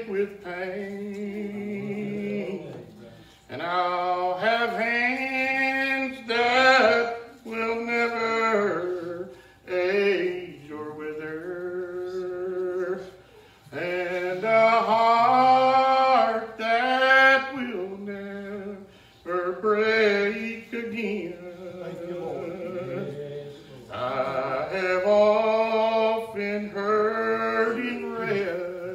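A man's voice preaching in a chanted, sing-song cadence, in drawn-out pitched phrases of a few seconds each broken by short pauses: the tuned, chanted preaching style of Old Regular Baptist preachers.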